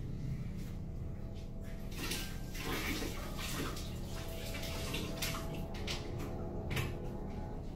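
Water running and splashing at a kitchen sink, with a few sharp knocks about five and seven seconds in, over a low steady hum.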